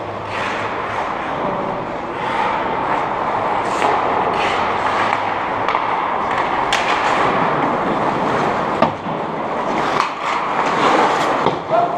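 Ice hockey play: skate blades scraping and carving the ice over a steady rink hiss, with sharp clacks of sticks and puck scattered through, the loudest knocks near the end as play comes toward the goal.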